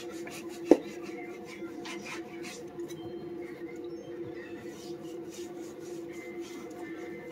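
Kitchen knife slicing through raw pork belly on a wooden cutting board: soft cutting and scraping strokes, with a single sharp knock just under a second in, over a steady low hum.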